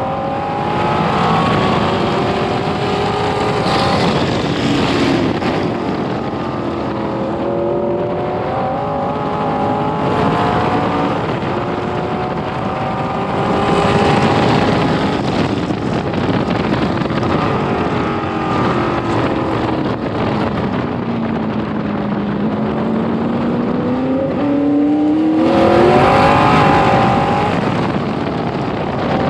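Onboard sound of a 1966 Corvette B Production race car's V8 engine at racing pace, its pitch climbing through the gears and dropping between them. About two-thirds in the note sinks slowly and then climbs hard again.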